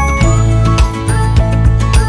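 Upbeat background music with a steady beat and chiming, bell-like melody notes.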